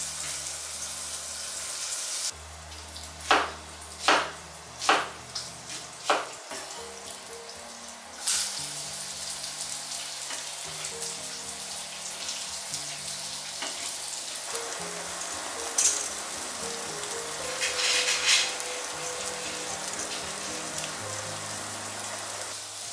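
Food sizzling and frying in a frying pan on a gas hob, with a run of five sharp knocks a few seconds in and louder surges of sizzle twice in the second half. Soft background music plays underneath.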